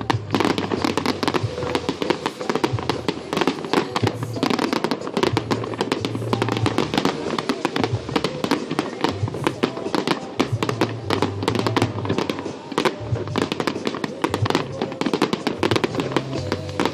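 Fireworks going off in a dense, continuous run of rapid crackles and pops, with music playing underneath.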